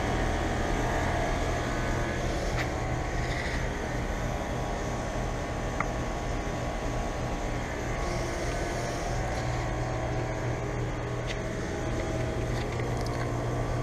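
Outdoor central air conditioning condenser units running: a steady compressor hum with the even rush of the condenser fan.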